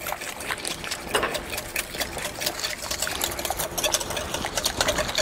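A whisk beating a thin coconut-milk and yeast mixture in a glass bowl, with quick, irregular clicking and splashing strokes against the glass.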